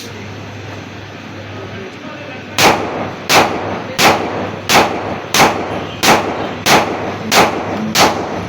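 Glock 19 Gen 5 9mm pistol being test-fired: nine single shots in a slow, even string about 0.7 s apart, starting a little over two seconds in, each with a short echoing tail.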